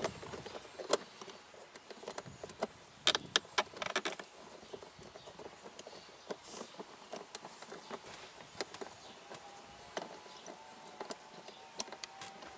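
Scattered small clicks and taps of plastic pillar-trim caps being prised out and screws being removed inside a 2003 Toyota 4Runner, with a quick run of sharper clicks about three to four seconds in.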